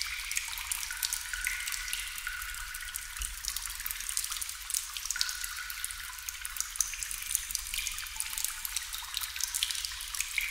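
Water dripping steadily into water: a dense patter of small drops, many landing with short, pitched plinks.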